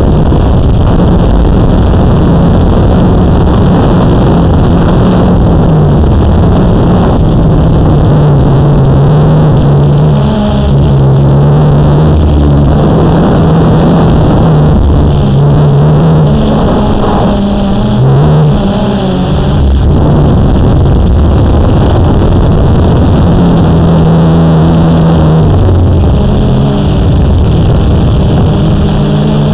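Blade 350 QX quadcopter's brushless motors and propellers humming loudly, heard from the camera mounted on the drone itself. The hum shifts up and down in pitch several times as the drone holds against the breeze and manoeuvres.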